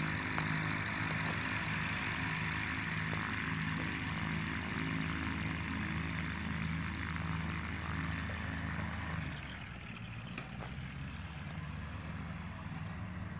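Ultralight trike's engine idling steadily with a low pulsing hum, getting quieter about nine seconds in.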